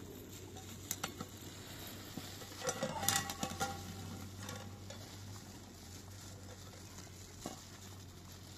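Cooking in a metal pot: a spoon stirring and clinking against the pot, loudest about three seconds in where the clinks ring briefly, among scattered light clicks.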